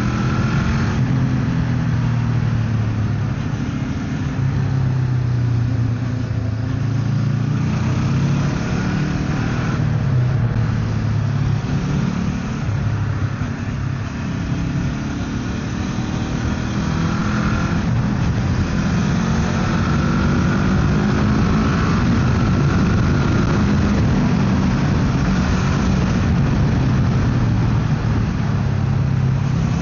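Motorcycle engine running under way with wind noise, its pitch rising and falling with the throttle through the ride.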